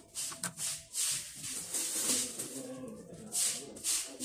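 Repeated short, irregular swishing and scrubbing noises from kitchen cleaning at the counter, over quiet background music.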